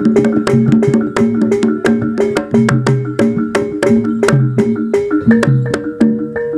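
Jaranan gamelan music: a fast, even beat of drum strokes, about five a second, under ringing pitched metal percussion and a held tone.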